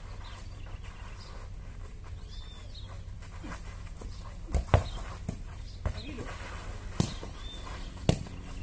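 A football being kicked and struck during a kickabout on a dirt pitch: a few sharp thuds, the loudest about halfway through and two more near the end, over a steady low hum.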